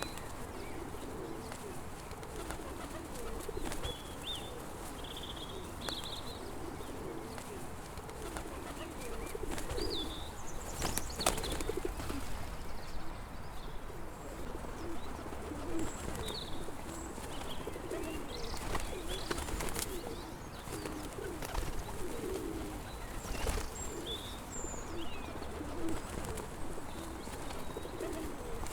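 A flock of pigeons cooing continuously in a low murmur, with small birds chirping high above now and then. A few short sharp knocks stand out, clearest about 11 and 23 seconds in.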